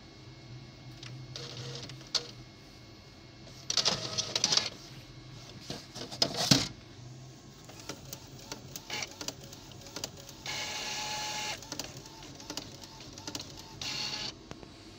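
Epson T60 inkjet printer printing a page: several short bursts of motor whirring and clicking, with a longer steady whir about ten seconds in.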